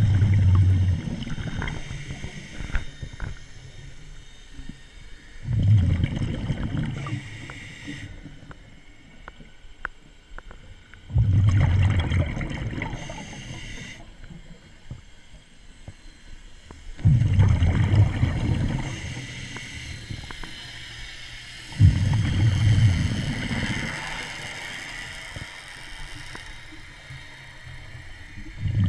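Scuba diver's regulator breathing, heard underwater: exhaled bubbles rumble out in a burst about every five to six seconds, each fading over a second or two, with a quieter hiss in between.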